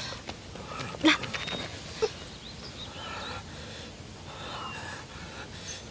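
A short gasp-like vocal sound about a second in, then quiet forest ambience with a few faint bird chirps.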